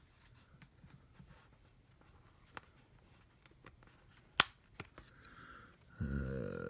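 Plastic retaining clips of a Lenovo IdeaPad Flex 5 Chromebook's bottom cover popping loose as the case is pried open: a few faint clicks and one sharp snap about four seconds in. Near the end, a man's low, drawn-out vocal sound begins.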